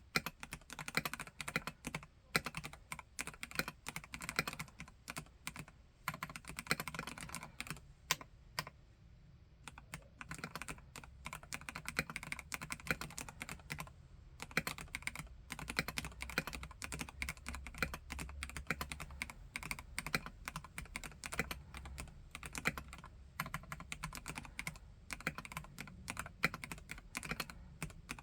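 Steady, fast typing on a Vortex KBt RE:68 mechanical keyboard with Gateron G Pro Red linear switches: a dense run of key clacks that stops briefly about nine seconds in and again near fourteen seconds.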